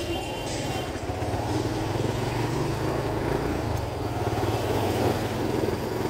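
Motorcycle engine of a motorized tricycle running steadily under way, heard from aboard, mixed with the noise of nearby traffic.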